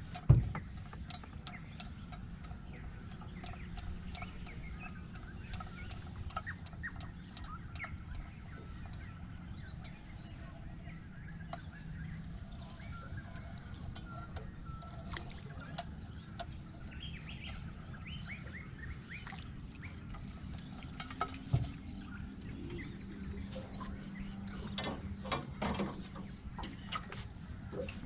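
Open-air river ambience with a low wind rumble, scattered light clicks from an angler working a rod and reel in an aluminium boat, and birds calling in between. A few louder knocks come in the last few seconds as he leans down to land the fish.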